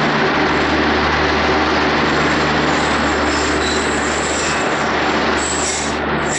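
Bangladesh Railway intercity passenger coaches rolling past along a station platform: a steady rumble of wheels on rail over a low, even hum. A thin, high wheel squeal comes in about halfway and grows stronger near the end.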